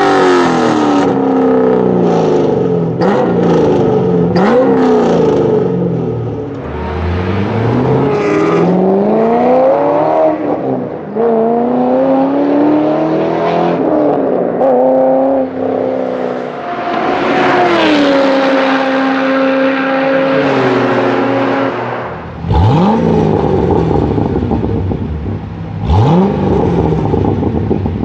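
Chevrolet Corvette's LS7 7.0-litre V8 revving and accelerating, its pitch climbing and dropping again and again as it pulls through the gears, with quick sharp rises in revs about two-thirds through and again near the end.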